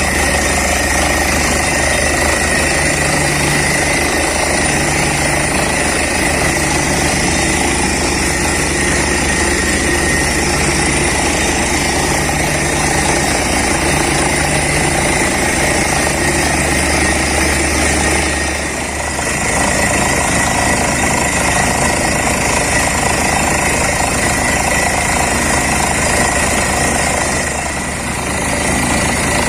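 Borewell drilling rig running, its engine and air compressor driving a rapid, continuous hammering as the bit drills into the ground, with two brief dips in level.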